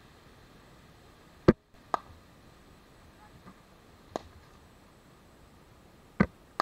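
Sharp knocks of a cricket ball in net practice, off the bat and onto the pitch or net. There are loud knocks about a second and a half in and again near the end, with fainter ones at about two and four seconds in.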